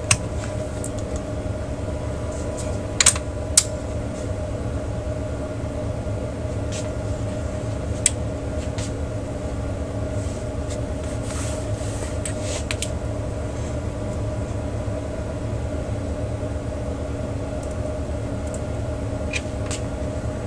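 Steady mechanical hum throughout, with a few sharp clicks of multimeter probe tips touching the receiver's circuit board: two close together about three seconds in, one near eight seconds, and two more near the end.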